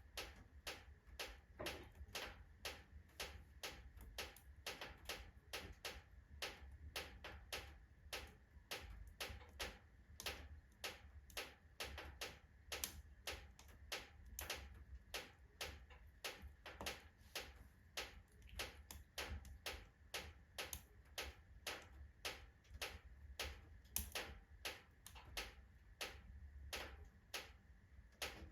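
Oak logs burning in a fireplace, crackling with sharp irregular pops, about three a second, over a low steady rumble.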